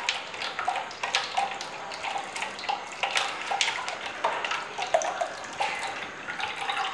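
Blended green grape juice running in a thin stream from a straining bag into a bowl of juice, splashing steadily with many small plops and drips.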